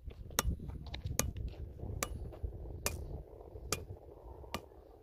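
Steady hammering: six sharp, evenly spaced blows, a little more than one a second.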